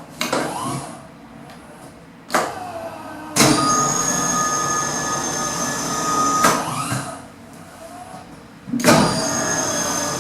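Small platform lift in operation: sharp clunks, then its drive running with a steady whine for about three seconds. It stops with a clunk, and near the end starts again with another clunk and the same whine.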